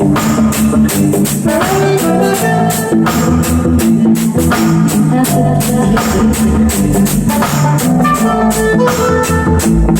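Loud recorded music with a drum kit keeping a steady beat under organ-like keyboard chords.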